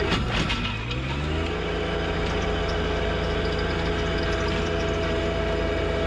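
John Deere 1025R compact tractor's three-cylinder diesel engine running under load, driving a PTO rototiller through topsoil. Its pitch sags sharply near the start as the load comes on, recovers within about a second and a half, then holds steady.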